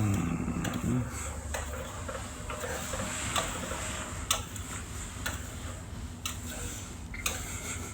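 Light, sharp ticks about once a second over a low steady hum.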